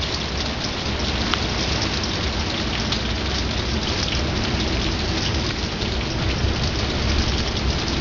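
Heavy rain falling steadily.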